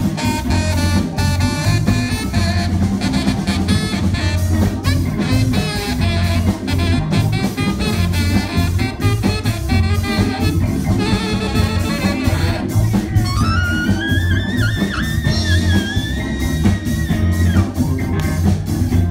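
A live horn band, with saxophones and trumpet, playing a tune over drums. About two-thirds of the way through, one high note slides up and is held for several seconds.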